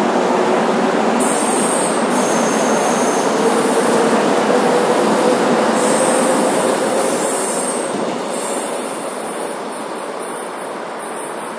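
Electric commuter train running past close by, with a motor whine that rises slowly in pitch as it picks up speed and brief high wheel squeals, then fading away after about eight seconds.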